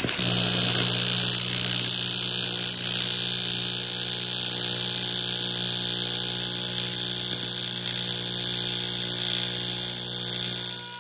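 AC TIG welding arc on aluminum, a steady loud buzz with a hiss over it, struck at the start and cut off at the very end.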